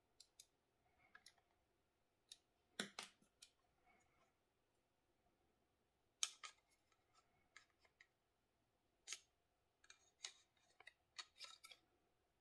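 Irregular light clicks and taps of hard plastic and metal airsoft replica parts being handled and fitted together with a hex key, the sharpest about three seconds in and just after six seconds, with a quick run of them near the end.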